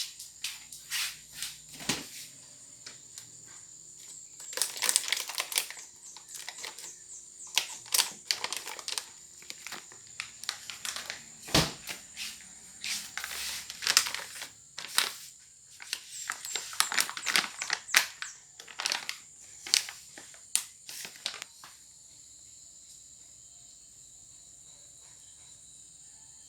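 Close-up handling sounds: a string of small taps and clicks mixed with crinkling rustles, dense for about twenty seconds, then stopping and leaving only a faint steady hiss.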